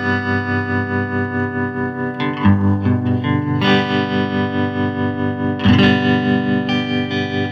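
Fender Stratocaster played through a 1968 Fender Princeton tube amp turned all the way up, with the amp's tremolo on. Overdriven chords ring out and change every second or two.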